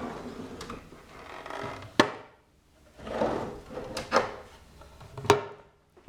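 Wooden cabinet parts sliding and being shut, with two sharp wooden knocks, one about two seconds in and one near the end.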